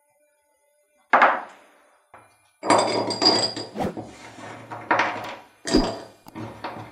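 Slotted black knife-handle discs dropped by hand into a small glass jar, clinking and clattering against the glass and each other. There is one sharp clink about a second in, then a run of clatter, then several more single clinks.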